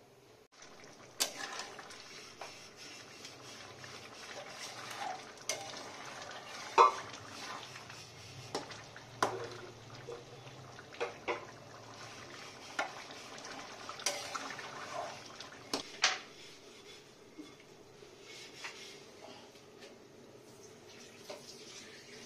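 Metal spatula clinking and scraping against an iron kadai while stirring a simmering pea curry: a dozen or so sharp, irregular clinks over a low steady hiss.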